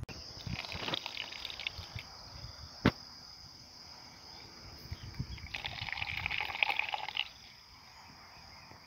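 Insects chirring in a steady high-pitched drone, with handling noises, a sharp click about three seconds in, and a rustling, splashy stretch around six to seven seconds.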